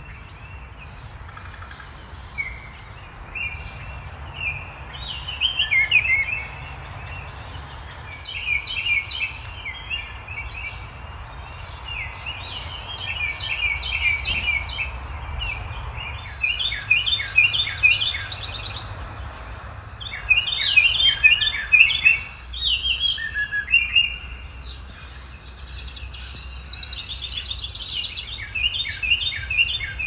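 Several songbirds singing in a dawn chorus over a steady low rumble: scattered whistled phrases in the first half, a Baltimore oriole among them, then from about halfway a Carolina wren's loud song of quickly repeated phrases.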